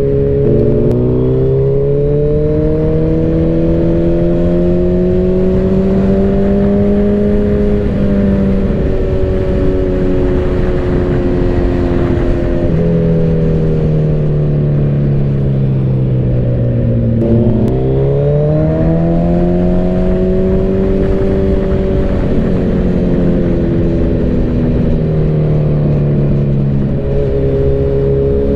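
Suzuki Hayabusa's inline-four engine running at highway speed over steady wind rush. The engine note climbs slowly, eases off, then dips and climbs sharply about two-thirds of the way through as the throttle is worked.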